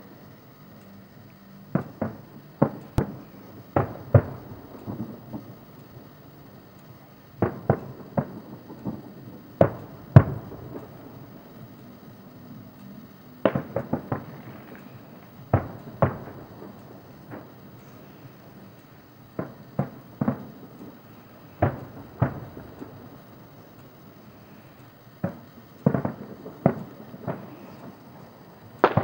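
Aerial firework shells bursting: sharp bangs in irregular clusters of two to five, each followed by a short rumbling echo, with pauses of a few seconds between clusters.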